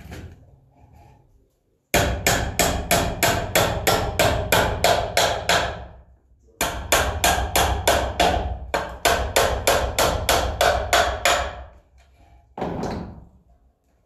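Hammer striking a wooden birdhouse box in quick, even blows of about four a second. The blows come in two long runs with a short pause between them, followed by one more knock near the end.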